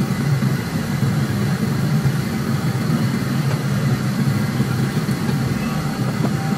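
Steady low roar of a commercial wok range, its gas burner and blower fan running.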